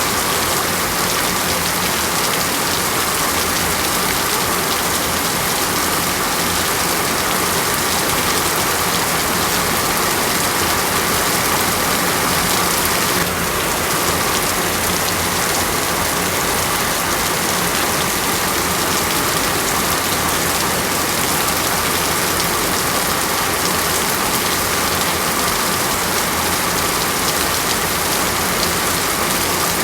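Steady rain falling on a surface, an even hiss of countless drops.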